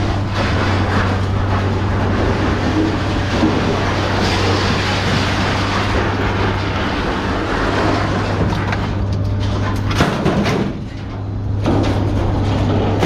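Scrap steel clattering and banging as it is thrown off a truck onto a scrap pile, over a steady engine hum.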